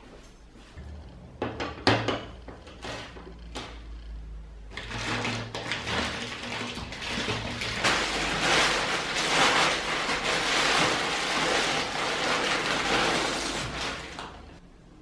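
A few sharp knocks about two seconds in, then a thin plastic bag crinkling and rustling for several seconds as it is untied and opened around a block of clay.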